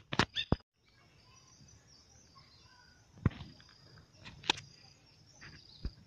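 Crickets chirring steadily as a faint, thin high tone. A cluster of loud sharp clicks comes in the first half-second, and single sharp clicks come about three, four and a half, and six seconds in.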